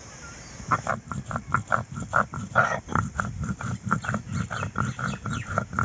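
Stone roller of a shil-nora grinding stone worked back and forth over the flat stone slab, grinding cumin seeds into paste: rhythmic scraping grinding strokes at about four a second, starting about a second in.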